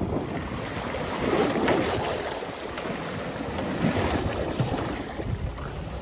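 Wind on the microphone and sea water sloshing and splashing around the stern of a small boat, rising and falling unevenly.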